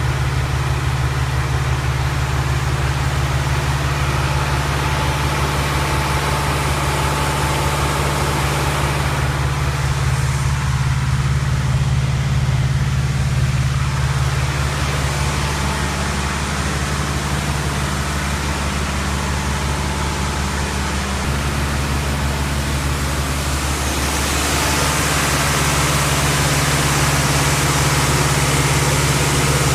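Kongskilde suction grain blower running steadily, powered by a tractor: a low, even engine hum under a rushing hiss of air and grain being drawn up through the intake nozzle and pipes. The hiss grows louder near the end.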